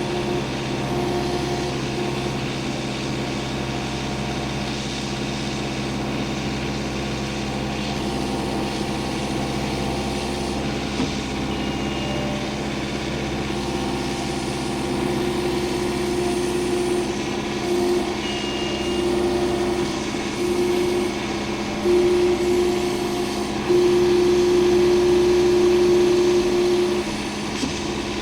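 Engine of a log-handling machine running steadily, with a higher strain coming and going over the second half and loudest near the end. Two short high beeps of its reversing alarm sound partway through.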